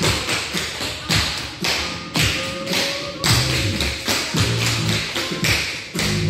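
Tap shoes of a group of dancers striking a wooden floor in quick rhythmic clusters of taps, over background music.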